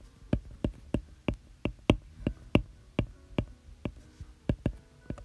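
A stylus tapping and clicking on an iPad's glass screen while drawing: a quick, uneven series of sharp clicks, about three a second.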